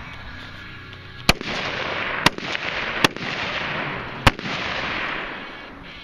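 AR-15 carbine firing four shots about a second apart, the last a little later, each shot followed by a short echo.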